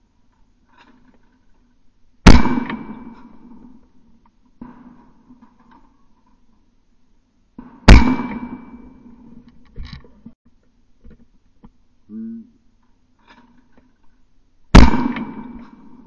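Three shotgun shots at clay targets, each a single sharp report with a trailing echo that dies away over a second or so. The shots come about five and a half and then about seven seconds apart.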